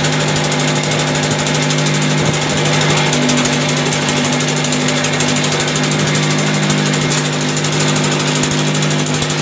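Vibrating table under a steel mould of fresh concrete, its motor running with a steady hum while it shakes the concrete to compact it.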